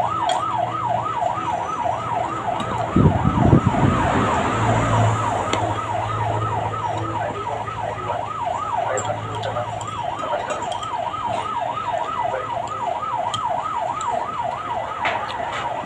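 Electronic siren sounding in a fast yelp, its pitch swooping up and down about three to four times a second without a break. A brief low rumble comes about three seconds in.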